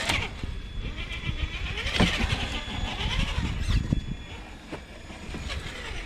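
Traxxas TRX-4 1/10-scale RC rock crawler driving down over rocks: the electric motor whirs and changes pitch as it works, and the tyres and chassis knock on the stone a few times.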